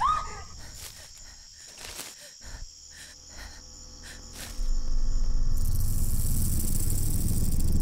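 Night forest ambience with insects chirping. About four and a half seconds in, a loud low rumble swells in and holds, with a high hiss joining it soon after.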